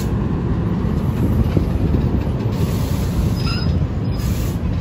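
New Jersey Transit bilevel passenger coaches rolling past close by, with a steady rumble of wheels on the rails.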